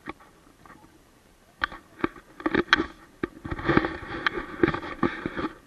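Handheld camera being handled and repositioned: a run of sharp clicks, knocks and rubbing right on the microphone, loud, starting about a second and a half in and stopping just before the end.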